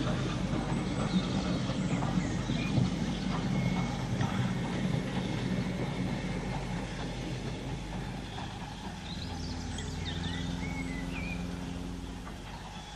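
Model railway train running past on the track, its wheels rumbling and clattering along the rails, growing fainter as it goes by. A steadier low hum takes over for a few seconds near the end.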